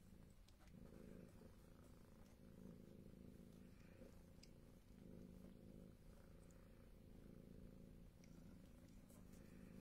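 Turkish Angora cat purring faintly, the purr swelling and easing with each breath every second or two.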